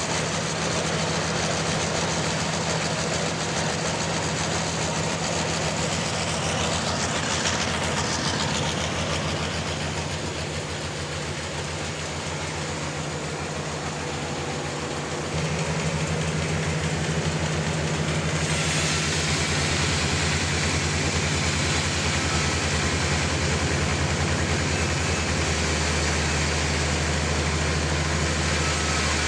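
A large engine running steadily, its low tone changing a few times. A brief sweeping whine comes a few seconds in.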